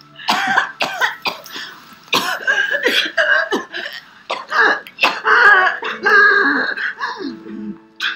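A woman coughing and gasping for breath in a long fit of repeated coughs, as she starts breathing again after being smothered in grain.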